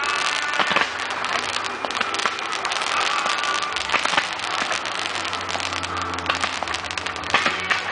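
Fireworks display: a dense, continuous crackling of crackling stars and comets, with a few louder bangs, about a second in, near the middle and near the end.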